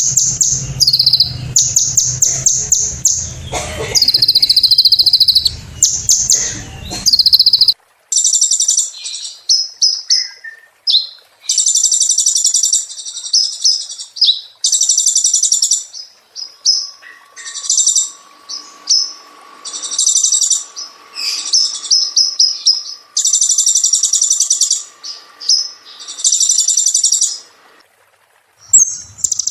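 Sunbird song: loud, rapid, high-pitched trilling and chattering phrases of a second or two each, repeated with short gaps. A low background rumble under the first several seconds cuts off abruptly.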